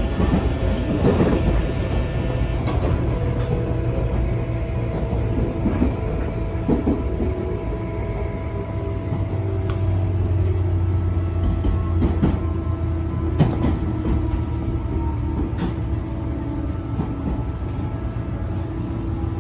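A Tobu 9000-series electric train car running, its Toyo Denki armature chopper control giving steady whining tones of the normal pitch over a heavy rumble of wheels on rail. A few sharp clicks come from rail joints.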